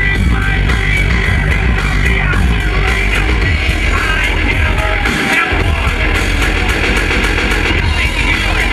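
Loud live band music with a heavy, steady bass beat; the bass drops out briefly about halfway through.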